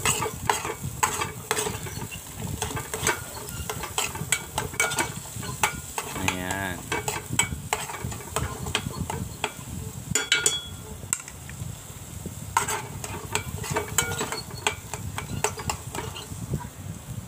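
A metal spoon stirring and scraping chopped onions, tomatoes and chillies sautéing in a metal pot, with a steady sizzle and frequent clinks of the spoon against the pot's side.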